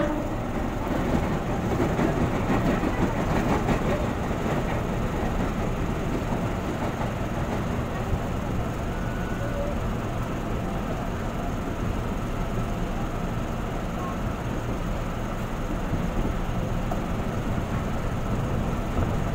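Commuter electric train running on the track, heard from inside a car as a steady rumble. An oncoming commuter train passes close alongside in the first few seconds.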